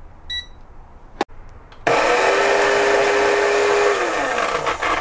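A short beep and a click, then a small electric coffee grinder runs for about two seconds with a steady whine and spins down, its pitch falling, once it is switched off. The motor's startup surge is what the clamp meter captures as its maximum current.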